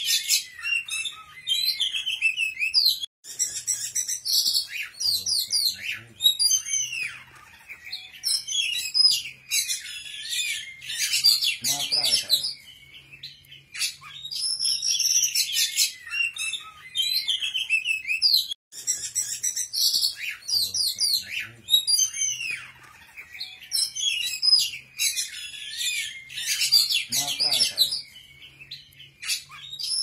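A small songbird singing a fast, varied, high-pitched song of chattering trills and whistled phrases, the same stretch of song repeating about every fifteen seconds.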